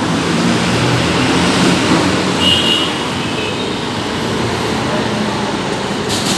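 Steady street traffic noise from passing motor vehicles, with a low engine hum that is stronger in the first two seconds.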